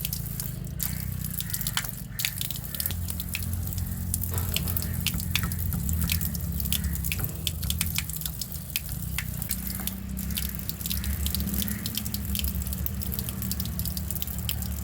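Water dripping quickly and irregularly from a leaking faucet, several drips a second, over a steady low rumble.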